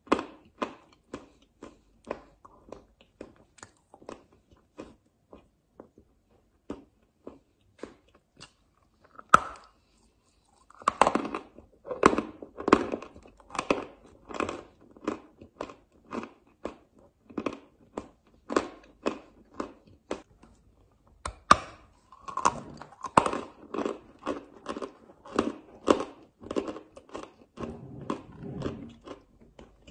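A person biting and chewing a chunk of chalk: a long run of sharp, crackling crunches. The crunches come steadily at first, thin out for a few seconds, then a loud bite about nine seconds in is followed by dense bursts of chewing.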